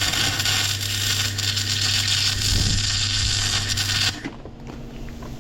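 MIG welding arc crackling steadily over a low electrical hum, then cutting off suddenly about four seconds in. The joint being welded has water in it.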